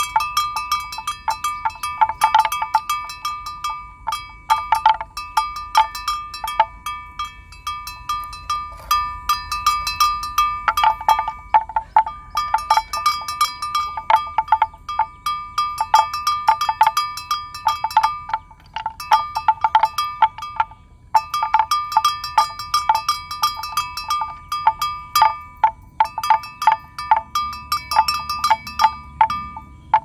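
Livestock bell on a grazing water buffalo clanking irregularly as the animal moves its head to graze, in runs of rapid strikes broken by short pauses.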